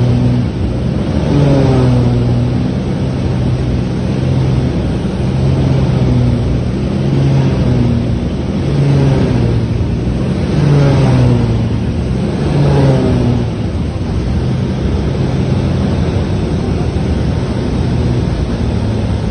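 Cabin noise inside a Cessna TU206G single-engine plane flying low toward an emergency landing: a steady drone whose pitch wavers, with several falling tones that come and go. The engine is reported to have cut out after takeoff.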